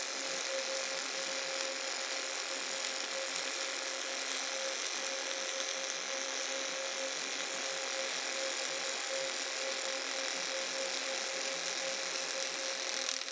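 Robotic CO2 MIG arc welding: a steady, even arc hiss and crackle with a faint steady tone running through it.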